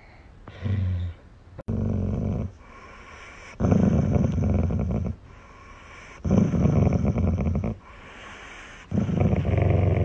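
Dog grumbling while being petted: five rough, low growls, the first one short and the rest about a second to a second and a half each, every two to two and a half seconds. It is a grumble of protest from a dog that still wants the petting, not an aggressive growl.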